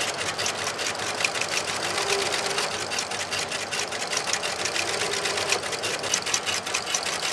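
Richpeace industrial stitching machine running, its needle punching carbon-fibre wire through six layers of carbon-fibre fabric with a fast, even mechanical clatter.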